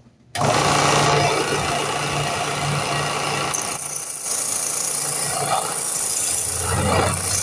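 Power sander running against the cherry wood knife handle, a steady grinding noise over a motor hum, starting abruptly just after the beginning.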